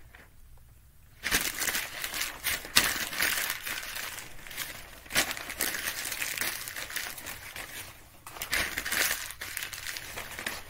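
Sheets of notebook paper being crumpled into balls by hand. The crinkling starts about a second in and runs on with a brief break near the end.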